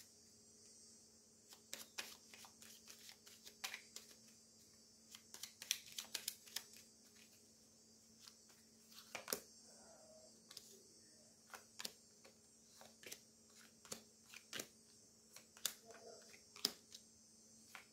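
A deck of Lenormand cards handled quietly: a flurry of light clicks as the cards are shuffled about five to seven seconds in, then single soft taps as cards are laid down one at a time on a lap desk, over a faint steady hum.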